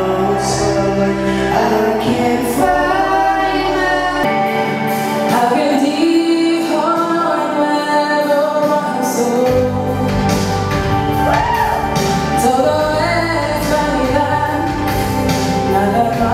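Amplified singing over musical accompaniment: a male-female duet at first, then a woman singing solo from about four seconds in, with long held notes that slide in pitch.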